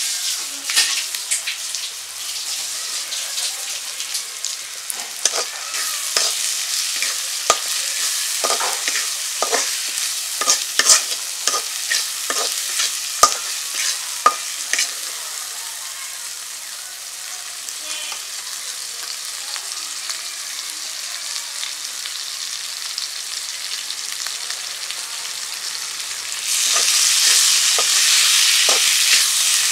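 Fish, onion and green chilli sizzling in oil in a black iron karahi, stirred with a metal spatula that scrapes and knocks against the pan many times in the first half. The sizzle turns louder and brighter near the end.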